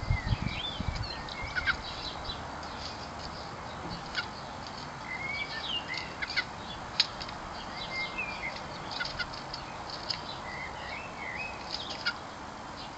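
Garden birds chirping and calling: many short chirps and wavering whistled notes scattered throughout, with a few sharp clicks and some low bumps at the start.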